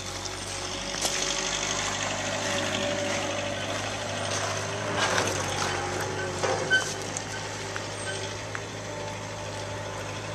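An engine idling steadily, with a couple of short knocks near the middle.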